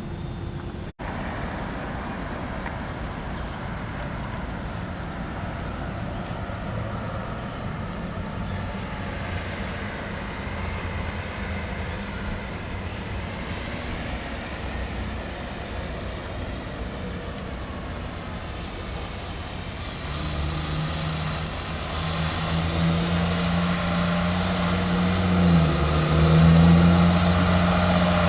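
A motor vehicle's engine running, with a steady low hum that comes in strongly and grows louder over the last several seconds, briefly dipping in pitch near the end.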